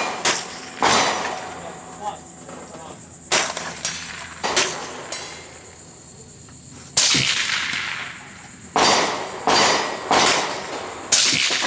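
About ten gunshots at uneven intervals, some under a second apart, with a quiet gap of about two seconds midway. Each shot dies away quickly.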